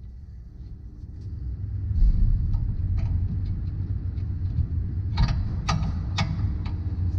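Car running with a low rumble that grows louder about two seconds in, and a few sharp knocks about five to six seconds in.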